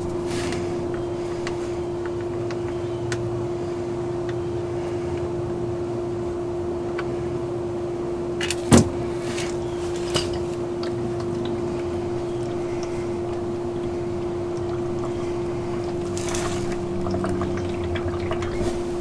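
Engine oil pouring in a steady stream from the oil pan's drain hole into a drain pan, with a steady hum throughout and a sharp click about nine seconds in.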